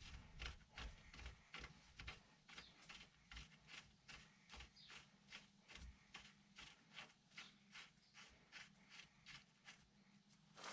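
Faint, rhythmic hand-scraping strokes on a metal part, about two to three a second, as old material is worked off.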